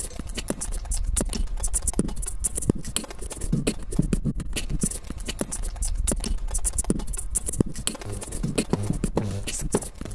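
Experimental music track built from dense, irregular clicks and scratchy percussive noises over a low steady hum, with no clear melody.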